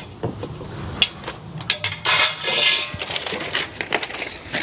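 Steel reinforcement bars clinking and knocking as they are handled and set down. A burst of paper and packaging rustling comes about two seconds in.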